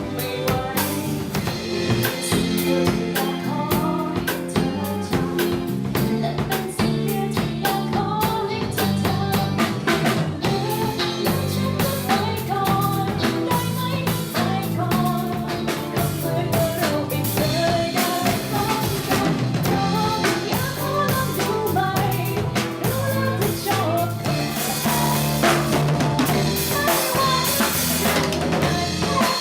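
A live band playing: a drum kit with bass drum, snare and rimshots over steady bass notes, with a wavering lead melody line in the middle stretch.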